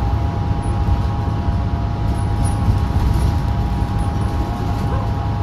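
Inside a 2016 New Flyer XDE40 diesel-electric hybrid bus under way: a steady low rumble with a high whine of several close, level tones above it.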